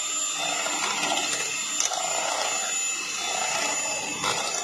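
Electric hand mixer running steadily, its beaters churning through wet cake batter in a bowl, with a thin high whine from the motor and a slow swishing that rises and falls.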